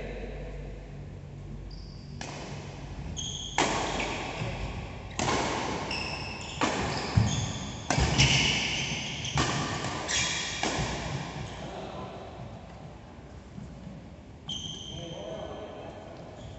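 Badminton rally in a large hall: rackets strike the shuttlecock about eight times, each hit a sharp crack with a ringing echo, with short high squeaks of shoes on the court between them. The hits stop about two-thirds of the way through.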